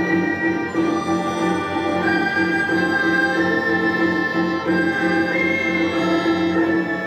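Chinese traditional orchestra playing a slow passage: the erhu section holds long bowed notes that step to a new pitch several times, over a low, evenly pulsing accompaniment from the plucked and bass instruments.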